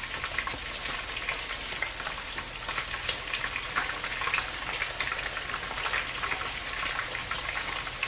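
Bacon-wrapped biscuits deep-frying in hot oil: a steady sizzle with frequent small crackles and pops.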